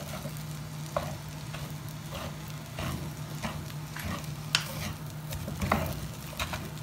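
A wooden spatula stirring and scraping rice in a metal pot, with irregular scrapes and light knocks against the pan over a soft frying sizzle. A steady low hum runs underneath.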